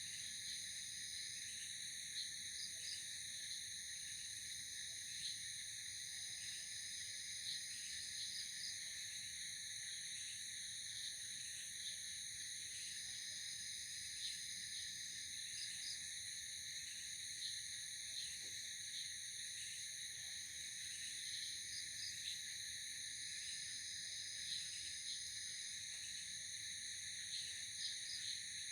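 Night insect chorus: a steady, high-pitched drone of insects such as crickets, with short chirps dotted over it every second or two.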